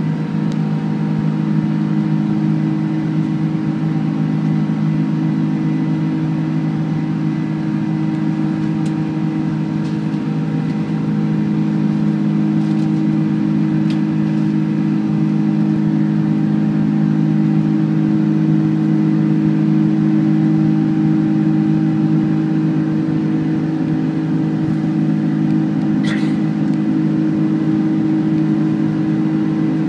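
Cabin noise of a Boeing 747-400 climbing out after take-off: the steady drone of its General Electric CF6-80C2 turbofan engines and airflow heard from a window seat, with several steady low hums. A brief faint chirp near the end.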